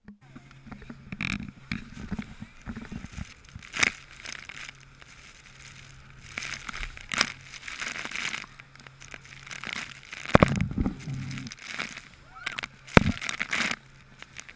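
Motorboat pounding through rough sea: a steady engine hum under bursts of rushing spray and wind, with several sharp bangs as the hull slams into the waves.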